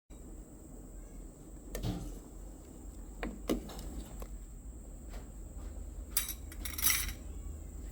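Handling noise: a few separate knocks and clinks over a steady low hum, then a short rattling jangle near the end.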